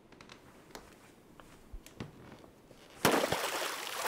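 A few faint clicks, then about three seconds in a sudden loud splash of water that dies away over about a second.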